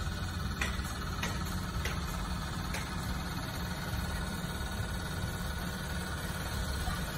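A steady low rumble, like a machine running, with four faint clicks in the first three seconds.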